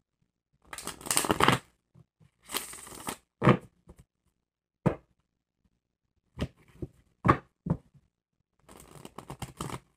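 A tarot deck being shuffled by hand, in irregular bursts of sliding, rustling cards broken by short pauses, with single sharp card clicks and taps between the bursts.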